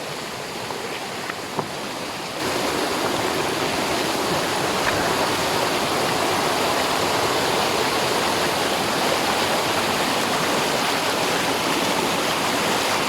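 Steady rush of water from a mountain stream and waterfall, stepping up suddenly louder about two seconds in.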